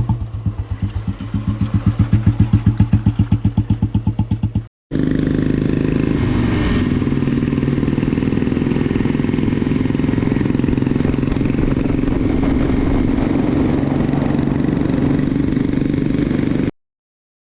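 Royal Enfield Bullet's single-cylinder four-stroke engine idling with an even, pulsing thump. After a short cut it runs steadily at higher revs, then stops abruptly near the end.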